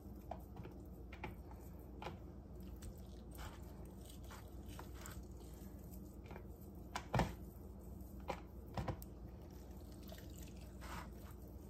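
Hands pulling meat and skin off a rotisserie chicken: faint wet squishing and tearing with scattered small clicks, and a few louder knocks about seven and nine seconds in.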